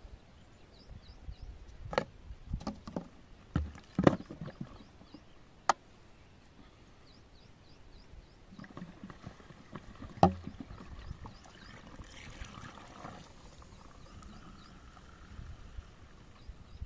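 Carbonated cola glugging and fizzing as it drains from an upturned 2-litre plastic bottle into a 20-litre plastic water can, with sharp clicks and knocks from the plastic bottles being handled.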